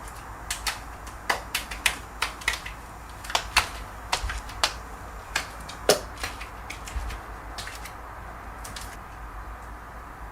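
Computer keyboard keys clacking in an irregular run of sharp clicks, dense for most of the stretch and thinning out near the end: the mysterious keyboard sound taken for a ghost in the house.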